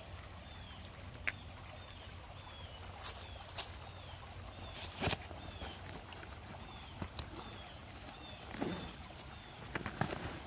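Outdoor ambience: a short, high chirp repeats about every half second over a faint steady background. Scattered clicks and rustles come and go, the loudest about five seconds in and again near the end.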